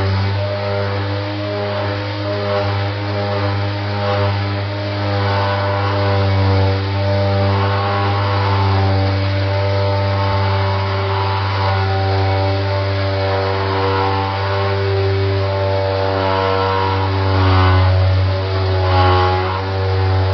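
Milwaukee M18 cordless random orbital sander running at speed 6: a steady motor hum with a strong low tone and a stack of overtones, swelling slightly in loudness now and then.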